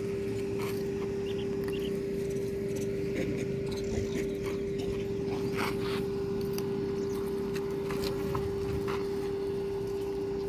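A steady mid-pitched hum that never changes, over a low outdoor rumble, with scattered faint clicks and crinkles.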